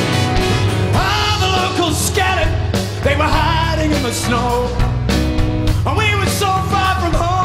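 Live rock band playing: a male lead singer over acoustic guitar, bass and drums, with a trumpet in the band.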